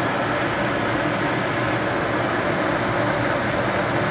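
Steady fan noise in a kitchen: an even whirring hiss with a faint low hum, running without a break.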